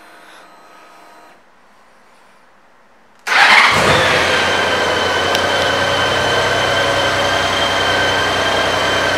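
Honda Gold Wing Valkyrie's flat-six engine starting about three seconds in, then idling steadily with a high whine over it.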